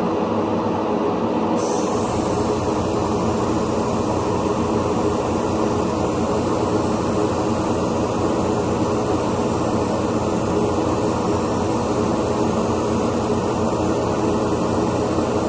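Spray booth exhaust fan running steadily, with a higher hiss that comes in about a second and a half in and holds.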